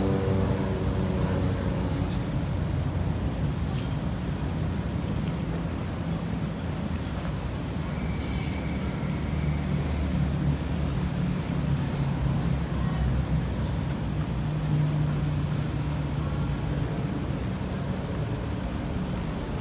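A ferry's diesel engines running with a low steady drone over a steady wash of background noise.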